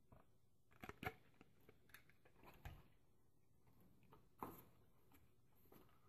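Near silence, broken by a few faint clicks and rustles of cardboard box flaps and a plastic tray being handled: about a second in, then twice more.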